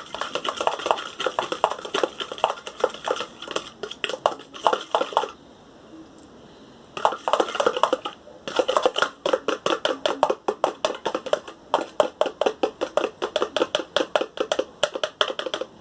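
A fork stirring quickly in a container of water, shampoo, baking soda and boric-acid water, clinking and scraping against the sides several times a second. The stirring pauses for about a second and a half near the middle, then resumes.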